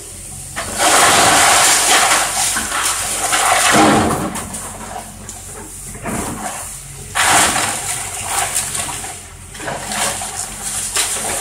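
Wooden house being torn down by an excavator: two long crashes of splintering wood and falling debris, about a second in and again past seven seconds, over the excavator's engine running steadily.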